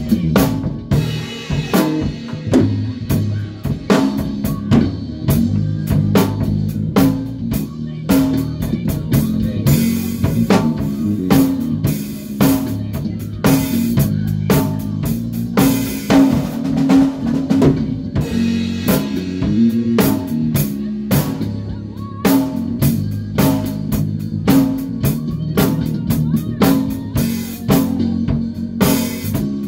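Live band playing: a drum kit keeps a steady beat of snare and kick hits under moving bass guitar lines.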